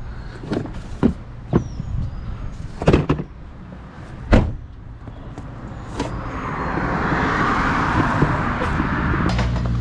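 A few sharp knocks and clunks, then a rushing noise that swells over several seconds. Near the end an engine starts running steadily with a low hum.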